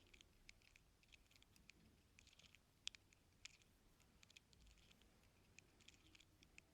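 Faint, irregular clicking and scratching of an ear-cleaning tool working inside an ear canal, picked up close, with a couple of sharper clicks about three seconds in.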